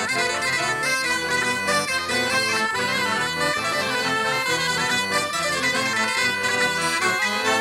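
Breton folk dance tune played on bagpipes, dense and unbroken, stopping sharply at the very end.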